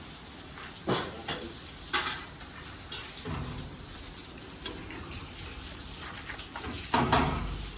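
Strong wind buffeting the microphone: a steady hiss with low rumbling gusts, the loudest just before the end. A few sharp clicks sound about one and two seconds in.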